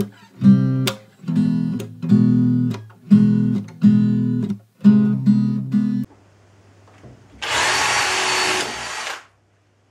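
Strummed guitar music in a steady rhythm for about the first six seconds. After a short pause, a cordless drill runs into the pressed-wood board for about two seconds and cuts off abruptly as the drill bit breaks.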